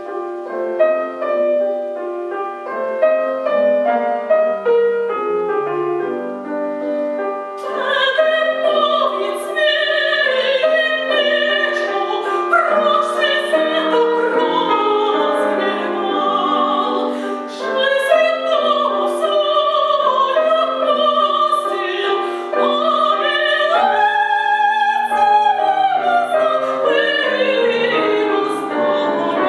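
Piano playing alone, then a woman's classically trained voice comes in about eight seconds in, singing an opera aria with vibrato over the piano accompaniment.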